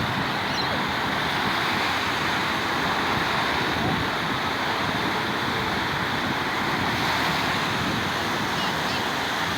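Sea waves washing steadily onto the shore as a continuous surf noise, with wind buffeting the microphone.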